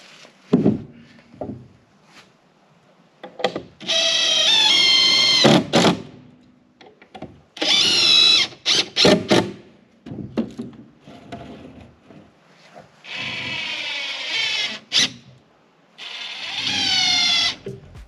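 Cordless drill driving screws into spruce boards in four runs of a few seconds each, with a few knocks of boards being handled between runs.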